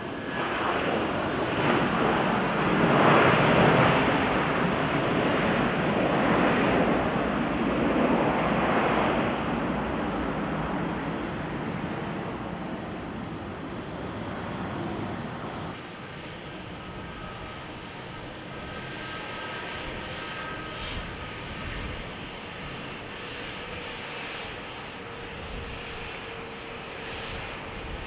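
Jet airliner engines at high power: a loud rushing roar that builds over the first few seconds and slowly fades over about ten seconds. After an abrupt change about sixteen seconds in, a quieter steady jet engine hum with a faint whine from a taxiing airliner.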